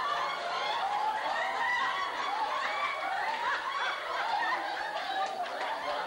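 Audience of older people laughing and chattering, many voices overlapping.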